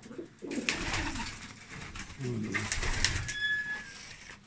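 Domestic fighting pigeons cooing in the loft, twice: two low coos about a second and a half apart.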